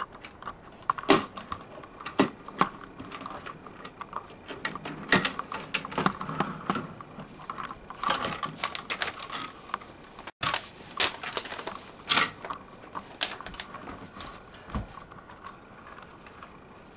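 Irregular clicks and knocks of plastic Playmobil toys being handled and pushed about on a tabletop, a toy car among them, with some rustling of hands.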